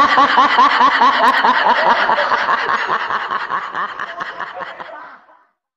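A man laughing hard: a long run of quick, high-pitched 'ha' bursts that fades away about five seconds in.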